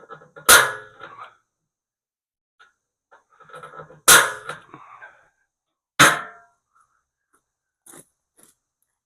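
Three loud metallic clangs, the second about three and a half seconds after the first and the third two seconds later, each ringing briefly, with lighter clinks of metal tools around them.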